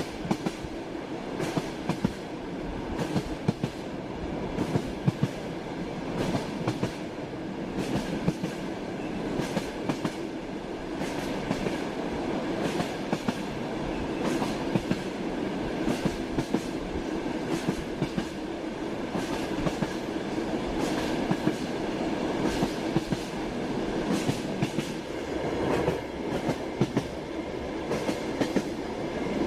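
Miniature train rolling along, its wheels clacking over the rail joints above a steady running rumble.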